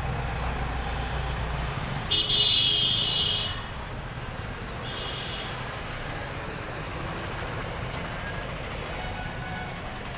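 A horn sounds for about a second and a half, starting about two seconds in, with a shorter, fainter toot near five seconds, over a steady low rumble.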